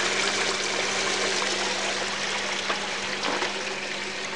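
Water pouring steadily from a pipe outlet into an aquaponics fish tank, splashing with drips falling around it, over a steady low hum.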